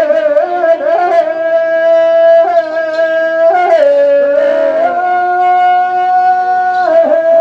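Rajasthani Teja gayan folk music: long drawn-out high notes, each held a second or more, sliding from one pitch to the next over a lower sustained tone.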